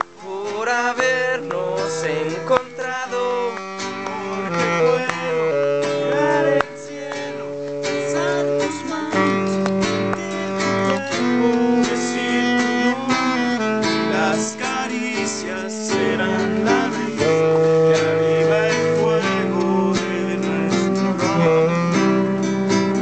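Acoustic guitar strummed in steady chords, with a held melody line of long notes over it.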